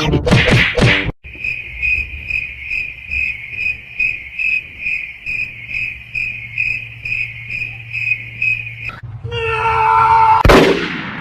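High-pitched cricket-like chirping, repeating evenly about four times a second. It stops near the end, where a brief sound with several pitches and a swish follow.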